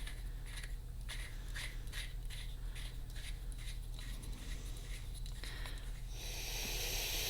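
Faint ticking about twice a second over a low hum as a pneumatic pressure regulator is handled and adjusted, then compressed air starts hissing near the end and swells. The air is escaping from an open port that has not been plugged yet.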